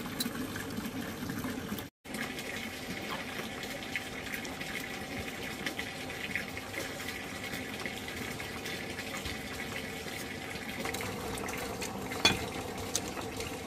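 Water running steadily, cutting out for an instant about two seconds in, with a sharp click near the end.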